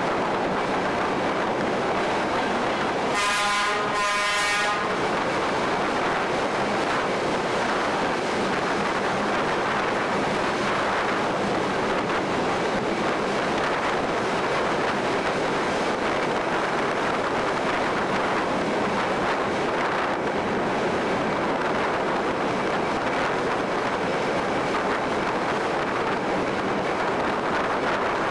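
Train running with a steady rushing noise, and the locomotive's horn sounding two short blasts in quick succession about three seconds in.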